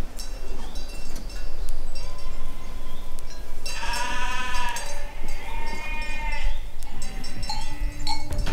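Causses du Lot sheep bleating twice, each bleat about a second long, around the middle, over the steady tinkling of small bells.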